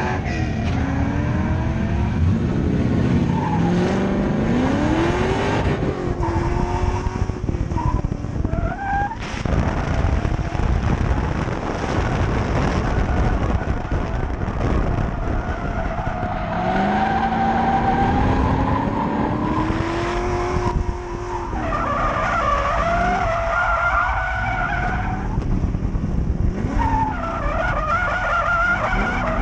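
Drift car driven hard, its engine revving up and down with rising and falling pitch, and its rear tires squealing in long slides from about halfway through, as the car drifts.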